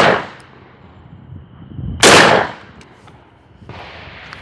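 Hatsan Bulltac semi-automatic 12-gauge bullpup shotgun firing buckshot: the tail of one shot at the very start, then another loud blast about two seconds in.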